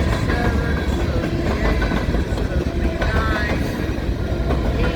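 Freight cars of a long mixed freight train rolling past: a steady heavy rumble of steel wheels on the rails, with short high squeals now and then.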